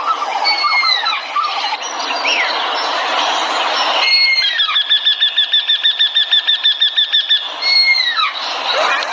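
Songbird chirping. About four seconds in, a bird breaks into a rapid, even trill of about eight notes a second, opened and closed by a falling whistled note.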